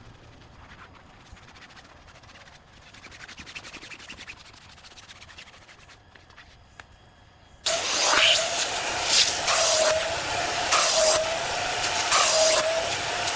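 Wet-dry vacuum cleaner running on car seat fabric, starting abruptly about eight seconds in: a loud rushing hiss of suction with a wavering motor whine and brief gusts as the nozzle moves. Before that, only a faint low sound.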